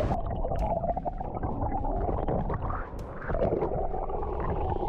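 Muffled sloshing and bubbling of seawater around a submerged camera microphone, over a low rumble. The high sounds drop out suddenly just after the start and return near the end.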